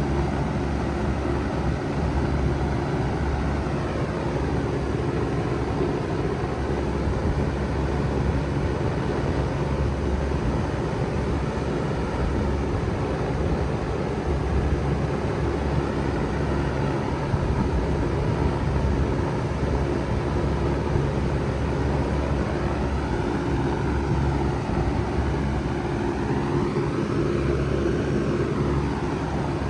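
Bard three-ton wall-hung heat pump running steadily in cooling mode: an even mechanical hum from the compressor and fans.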